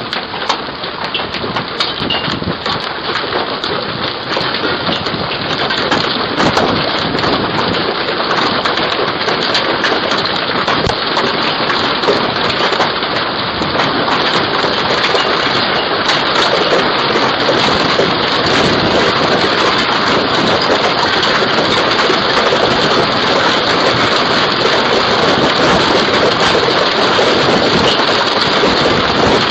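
Hailstones from quarter to ping-pong-ball size pelting down, with dense, rapid clattering hits over a steady rain-like hiss, heard through a Ring video doorbell's microphone. It grows louder over the first several seconds, then holds steady.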